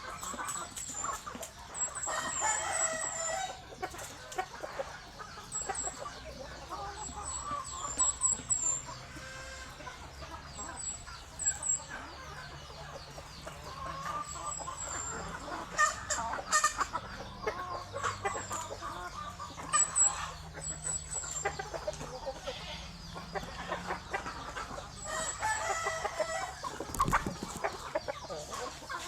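A flock of chickens clucking and calling, with a rooster crowing. Short high chirps recur throughout, and there are a few sharp knocks, the loudest about halfway through.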